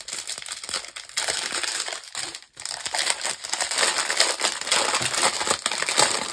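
Foil packaging crinkling and crackling as it is handled and unwrapped, with a brief pause about two and a half seconds in.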